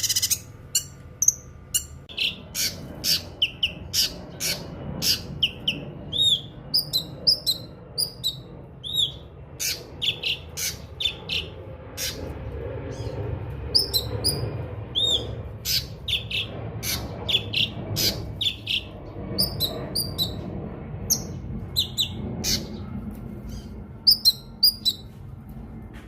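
Cucak kinoi singing: a rapid, continuing string of short, sharp chirping notes, two or three a second, over a low background rumble.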